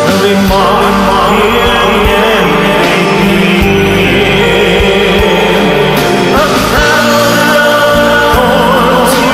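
A Christian song playing: a singing voice wavers over a steady instrumental backing.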